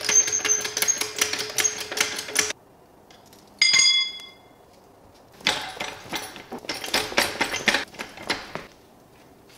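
Hand tools working on a motorcycle engine mount: two spells of rapid metallic clicking and rattling, with a short ringing metal clink between them.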